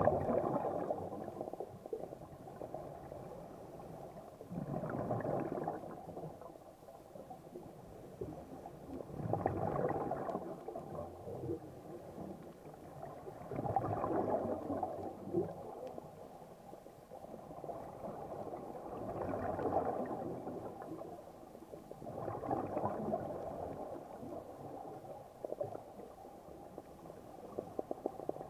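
Scuba diver breathing underwater through a regulator: a rush of exhaled bubbles about every four to five seconds, six times, with quieter stretches between the breaths.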